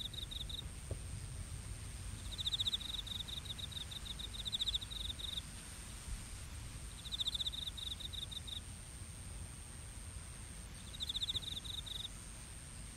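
Crickets chirping: rapid high-pitched trills in bursts of one to three seconds, four times over, above a steady high insect whine and a low background rumble.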